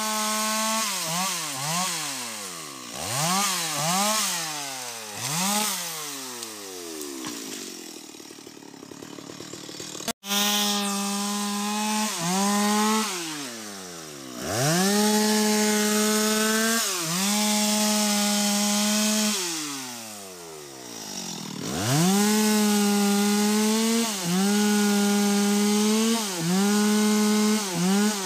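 Stihl MS 250 two-stroke chainsaw cutting through sengon wood. In the first part the engine is revved up and let back down several times in quick succession. After a sudden break about a third of the way in, it runs at full throttle in long steady stretches, dipping briefly between them.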